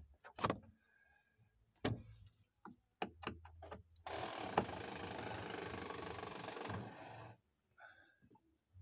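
A few sharp clicks and knocks, then a cordless drill runs steadily for about three seconds, starting and stopping abruptly, as it backs out a door-panel screw.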